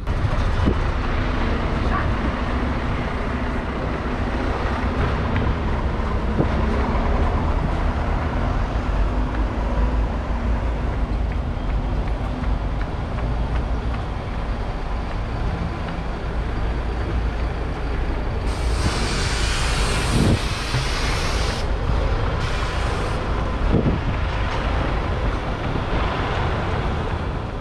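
Steady road traffic, buses and cars passing on an adjacent road, with a heavy low rumble. About two-thirds of the way through, a hiss lasts about three seconds.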